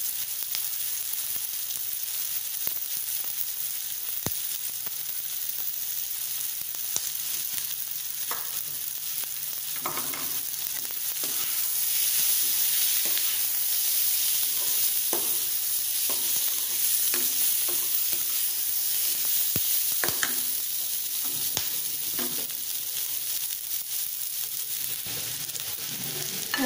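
Baby corn, capsicum and onion sizzling in hot oil in a kadai, a steady hiss that grows a little louder about halfway through. Metal tongs and a skimmer stir the pan, giving scattered clinks and scrapes against its sides.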